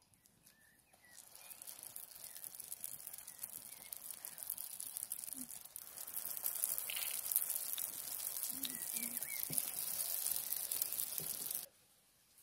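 Hot oil sizzling and crackling in a shallow round pan over a wood fire as dough buns fry in it. The sizzle grows louder about halfway through, once the buns are in, and cuts off suddenly near the end.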